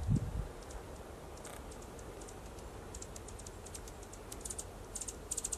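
Anna's hummingbird giving short, high, dry ticking chips. They are sparse at first and come in quicker runs near the end, over a faint low wind rumble.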